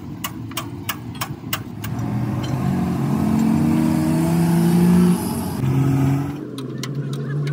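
A motor vehicle engine revving and running, its pitch climbing for a few seconds and then falling away about six seconds in. Before it, in the first couple of seconds, there is a row of sharp metallic clicks at about three a second.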